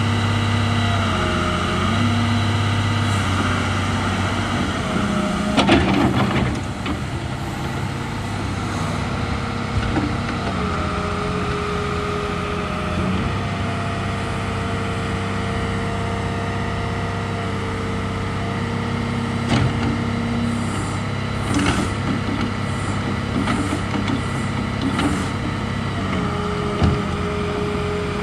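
Case Poclain 888 CK crawler excavator running, a steady low engine note with higher whining tones that step up and down in pitch several times. A loud noisy burst comes about six seconds in, and a few short knocks follow later.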